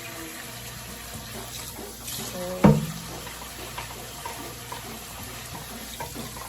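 Tap water running into a pot in the sink as rice is washed, with one sharp knock about two and a half seconds in.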